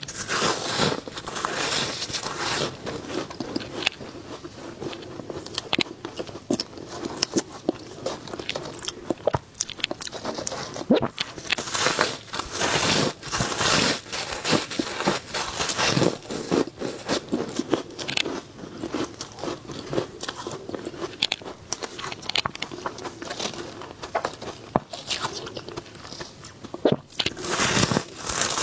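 Soft, powdery ice blocks being bitten and chewed close to the microphone: a long run of crisp crunches and crackles, with several louder bursts of crunching as fresh bites are taken.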